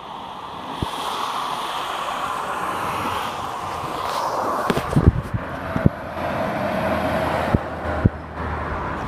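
Road traffic on a dual carriageway: tyre and engine noise growing as an articulated lorry approaches, with a deeper engine rumble joining from about halfway as it passes beneath. Several brief thumps of wind on the microphone.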